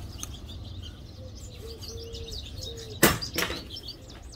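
A dove cooing in a low, repeated phrase (a short note, a long held note, then a short note) while small birds chirp high and thin in the background. About three seconds in come two loud, sharp knocks.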